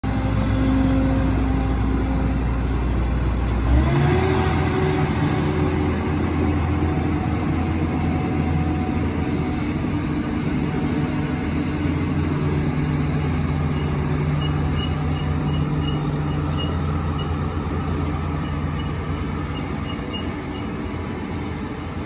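A John Deere combine and a large John Deere four-wheel-drive tractor pulling a grain cart driving past, their diesel engines running steadily. About four seconds in, the engine note steps up in pitch as it is throttled up. The sound fades a little near the end as the machines pull away.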